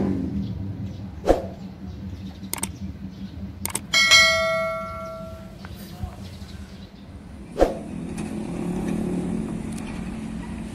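A steady low hum, with a few sharp clicks and a single bell-like metallic ding about four seconds in that rings on for over a second before fading.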